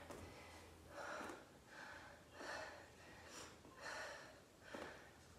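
A woman breathing hard from exertion: faint, quick, rhythmic breaths, about six in a few seconds.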